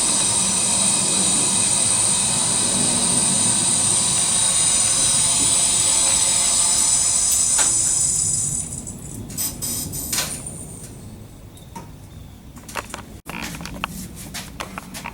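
A steady, loud hissing machine noise with a whine in it cuts off about eight and a half seconds in, followed by scattered light clicks and knocks.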